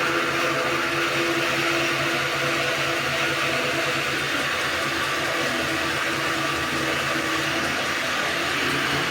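Steady whir of a homemade twin-spindle drilling rig, driven by an old bench grinder motor through a round rubber belt, running as it drills through wooden knife handles held on the lathe. A low, even hum sits under a steady hiss.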